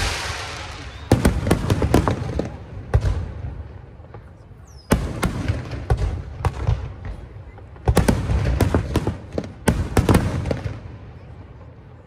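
Aerial firework shells bursting: about a dozen sharp bangs in clusters, each followed by a low rumble.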